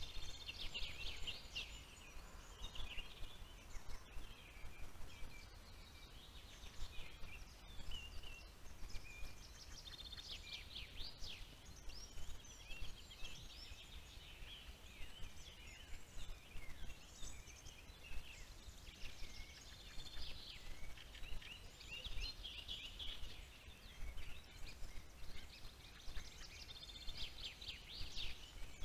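Several songbirds singing over one another. One repeats a fast trilled song about every ten seconds, over a low steady background rumble.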